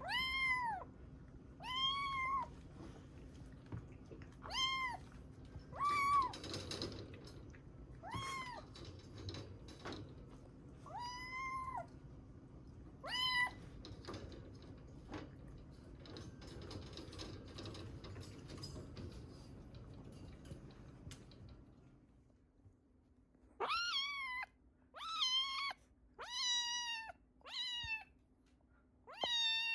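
A very young kitten, a few weeks old, mewing again and again: high-pitched mews, each about half a second long, rising and then falling in pitch. There are about eight mews spaced a second or two apart, a pause of several seconds, then a quicker run of five more.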